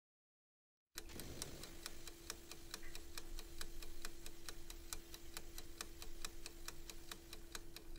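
Ticking clock sound effect keeping time with an on-screen timer: quick, even ticks over a faint steady hum. It starts after about a second of silence.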